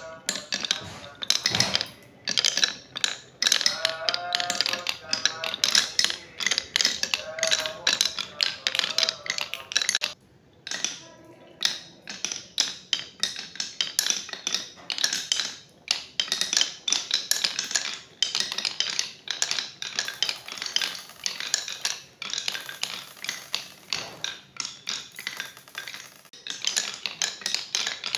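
Glass marbles rolling and clattering down a HABA wooden marble run: a dense, uneven stream of clicks and knocks as they run along the wooden chutes and drop onto the blocks below.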